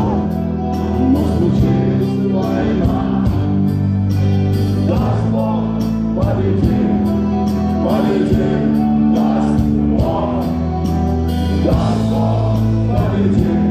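A rock band playing live: electric guitar, keyboards, bass and drums with a steady cymbal beat, and a man singing into a microphone.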